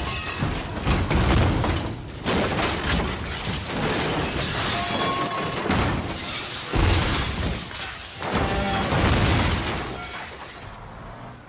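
Action-film soundtrack: a run of loud crashes with shattering and booms over dramatic score music, dying down near the end.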